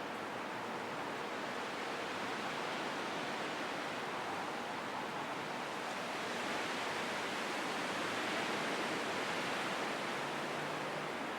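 Steady wind blowing through trees and around houses, a constant rushing that swells a little in the middle and then eases slightly.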